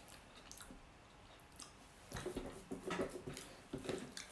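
Spatula scraping and tapping inside the plastic bowl of a food processor, with a few light clicks at first and then a run of short scraping strokes from about halfway through.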